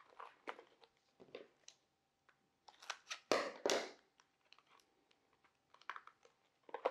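Cardboard tubes and brown packing tape being handled: scattered light crinkles and taps, with a louder crinkling rustle about three to four seconds in.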